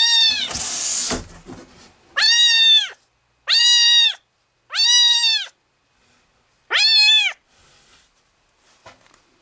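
Young kitten meowing, four high meows about a second apart, each rising and then falling in pitch, calling while it waits for its breakfast. A short rustle of handling at the start.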